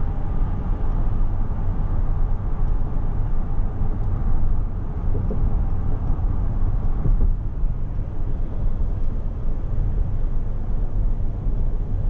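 Steady low road rumble inside the cabin of a 2021 Cadillac Escalade ESV cruising on a freeway: tyre and engine noise.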